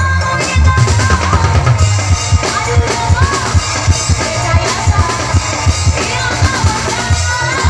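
Loud music with a busy drum and percussion part, with bass drum, snare and rimshot hits, over a heavy bass line. A gliding melody runs above it.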